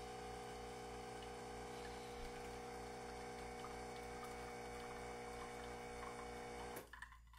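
DeLonghi La Specialista Arte espresso machine's pump humming steadily while pulling a two-cup espresso. It is faint and cuts off suddenly near the end.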